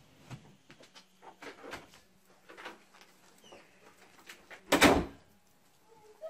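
Russian Blue kittens scuffling and pouncing at a feather wand toy on a bed: scattered light taps and rustles, with one much louder thump-like rustle nearly five seconds in.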